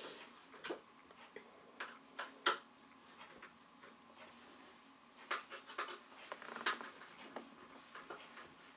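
Irregular light clicks and knocks of games-table parts being handled and fitted together during assembly. The loudest comes about two and a half seconds in, and a quick cluster follows later.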